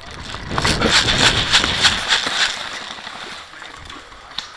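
Running footsteps crunching through dry leaf litter, a quick string of steps loudest in the first couple of seconds and then easing off.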